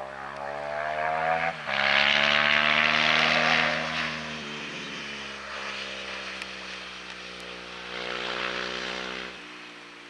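John Deere 6250R tractor's six-cylinder diesel engine revving up on a headland turn with a reversible plough on the linkage. It climbs in pitch over the first second or so, is loudest with a rushing hiss from about two to four seconds in, then settles to a steady pull. The sound drops away abruptly near the end.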